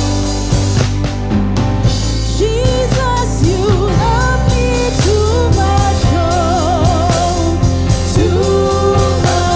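Gospel worship song: a voice singing a melody with vibrato over a band with steady bass and drums.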